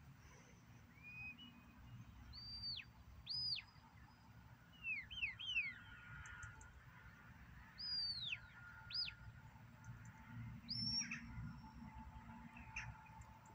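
Shepherd's whistle giving a series of sheepdog commands: clean high notes that rise and fall in arcs, in short groups of one to three with pauses of a second or two between, directing the dog as it works sheep.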